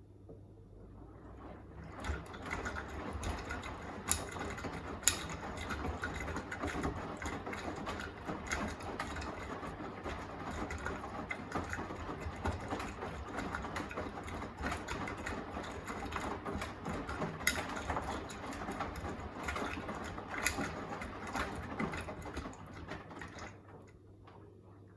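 Beko WTK104121A washing machine in its wash phase: the motor turns the drum for a stretch with a steady mechanical whir, the load tumbling with many small clicks and knocks. It starts about two seconds in and stops shortly before the end, as the drum pauses between turns.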